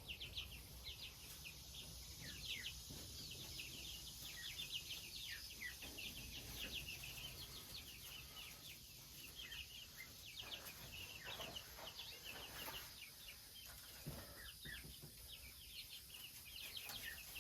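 Young chickens peeping in a flock: many short, high chirps overlapping steadily and faintly.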